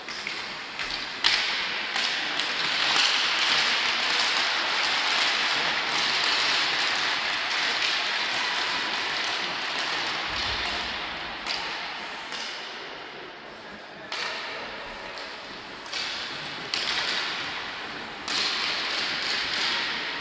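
Applause echoing around an ice rink: it swells about a second in, holds, then tails off, with sharp cracks every few seconds, each followed by a short echo.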